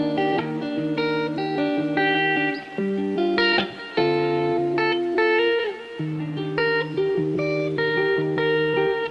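Background music: guitar playing a line of plucked notes.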